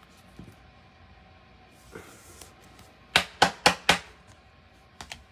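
Four quick, sharp taps on a hard surface, packed into under a second about three seconds in, with a few softer handling ticks around them.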